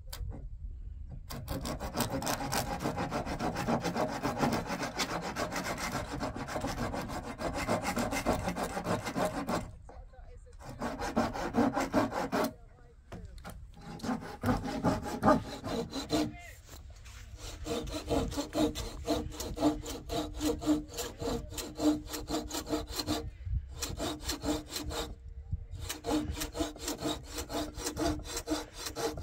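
Hand saw cutting through wood, a steady run of rasping back-and-forth strokes in several bouts with short pauses between them.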